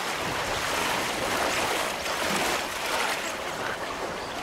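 Water splashing and surging as dolphins rush up onto a mudbank, driving a wave of fish ashore.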